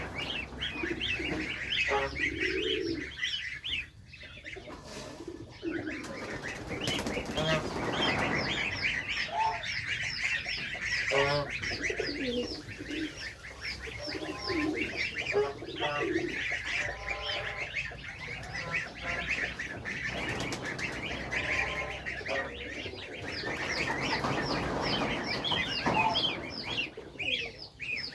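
A flock of goslings peeping in a steady stream of short, high cheeps, with lower calls mixed in.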